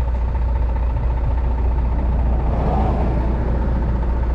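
Heavy truck's engine running with a steady low drone and a faint steady whine above it.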